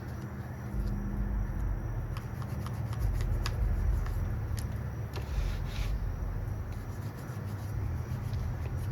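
Brush scrubbing and a rag rubbing over the chainsaw's parts, with scattered light clicks and taps and a longer scratchy scrub about five seconds in, over a steady low rumble.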